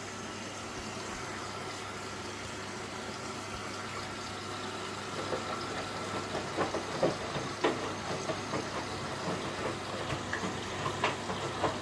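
Indesit washing machine filling with water while its drum turns, tumbling the clothes: a steady hum with water hissing in, and from about five seconds in, irregular soft knocks and splashes as the load drops in the drum.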